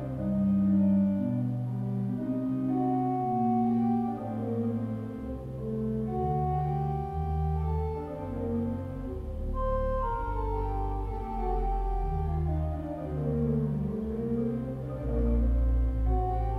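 Pipe organ playing sustained chords over deep bass notes; about two-thirds of the way through, a line of notes steps downward in pitch.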